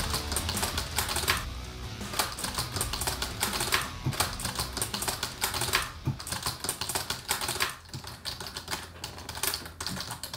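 Rapid, continuous typing on a keyboard, a dense run of key clicks, over background music.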